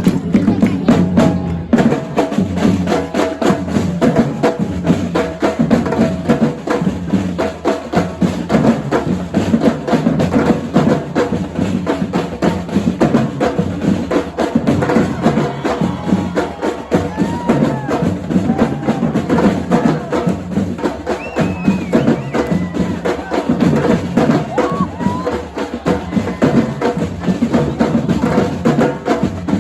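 A Brazilian-style percussion drum line playing together in a fast, driving groove: deep bass drums underneath dense, rapid strokes from snares and higher drums.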